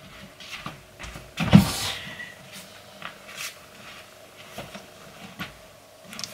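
A person moving about a small room and handling things: one louder thump with a rustle about a second and a half in, then a few faint knocks and clicks.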